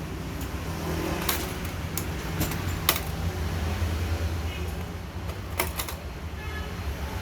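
Sharp clicks and taps from hands fitting a Xeon CPU into its motherboard socket, about half a dozen spread out, the loudest about three seconds in.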